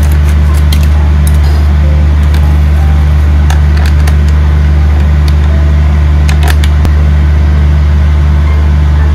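Loud steady low hum, with a few short clicks.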